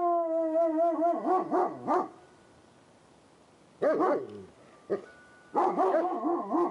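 Shiloh Shepherd howling with her head raised: one long held call that falls slightly in pitch, breaking into wavering yelps. A short second bout comes about four seconds in, and a third starts near the end.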